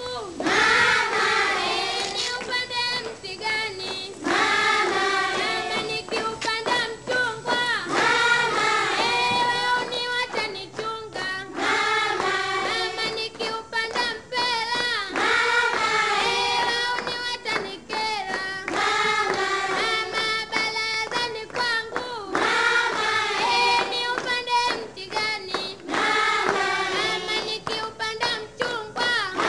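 A group of high voices singing a song together, in phrases of a few seconds each.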